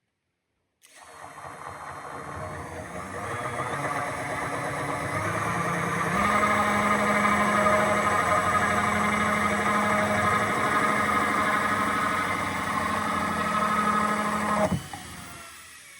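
Power drill spinning a hole saw into wood, starting about a second in and growing louder, then running steadily under load. Near the end the trigger is released and the motor winds down with falling pitch.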